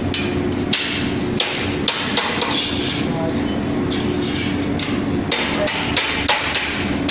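Hammer blows at irregular spacing, often less than a second apart, during a boiler installation, over a steady low hum.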